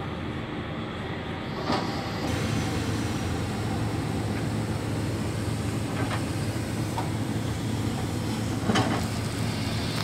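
Hitachi hydraulic excavator's diesel engine running steadily, its low drone growing stronger about two seconds in. Three short knocks sound through it, the loudest near the end.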